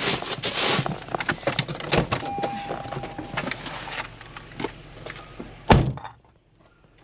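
A passenger climbing out of a Honda car, with rustling and small knocks as she moves and the front passenger door open. Then the door is slammed shut with one loud thump near the end.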